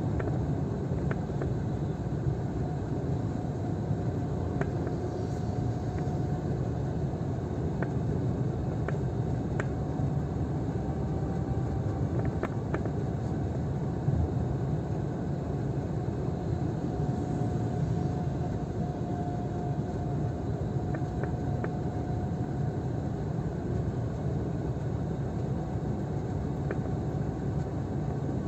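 Car driving on the road, heard from inside the cabin: a steady rumble of engine and tyre noise with a faint steady whine. A few faint ticks come through now and then.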